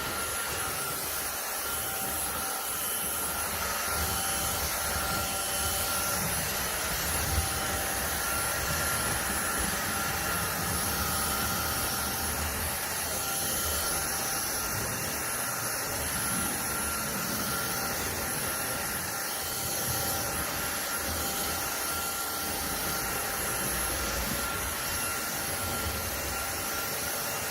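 INTETURE BP10 cordless stick vacuum cleaner running steadily: a rushing of air with a steady high motor whine over it.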